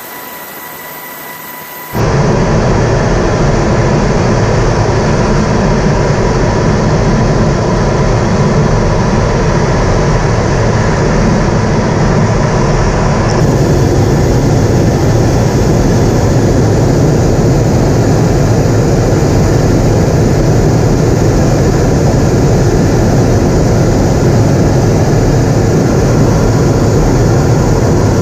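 Steady, loud noise of an aircraft in flight, engine and airflow heard from inside the cabin. It comes in abruptly about two seconds in and changes slightly in character about halfway through.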